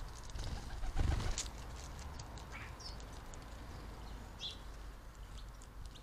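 Scattered short, high chirps of small garden birds, with a single low thump about a second in.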